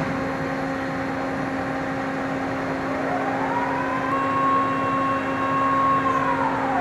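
Container crane machinery running with a steady hum. About three seconds in, a motor whine rises, holds level, then falls away near the end, like a drive speeding up and slowing down.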